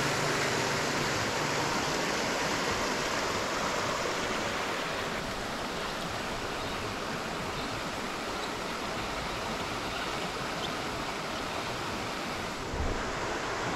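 Shallow creek water running over rocks: a steady rushing hiss that eases slightly over the first few seconds.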